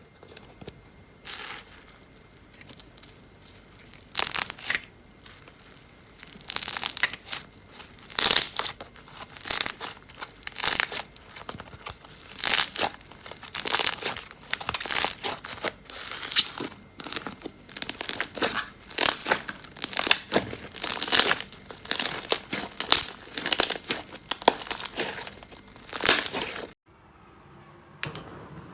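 Slime being pressed and pulled by hand in a quick series of short, sharp, noisy bursts, about one or two a second, that stops abruptly near the end.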